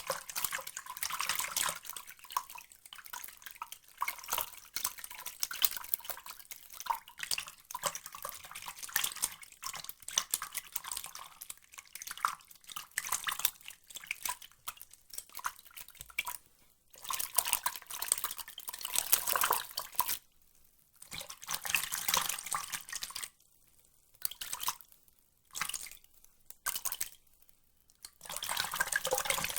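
Water dripping and splashing: a dense, irregular patter of small drops, broken by short silences in the second half.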